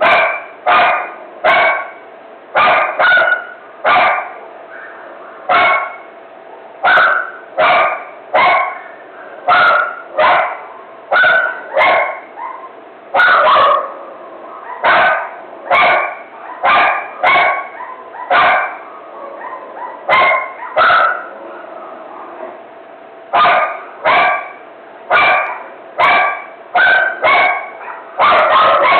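A dog barking in a frenzy: short, sharp barks about once a second, with a brief pause about two-thirds of the way through.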